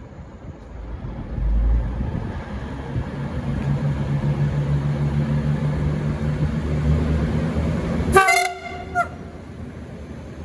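V/Line VLocity diesel multiple unit pulling away under power, its engines running with a steady low drone. Near the end comes a short horn toot of about half a second, then a second, briefer toot about a second later.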